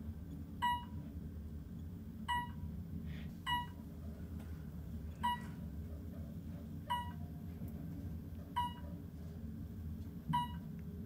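Seven short electronic beeps from an Otis Gen2 elevator car, one every second or two, over the steady low hum of the car travelling upward.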